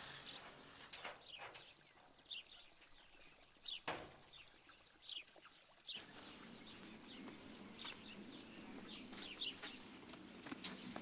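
Faint outdoor ambience with small birds chirping in short calls, and a single knock about four seconds in. A low steady hum comes in about halfway through.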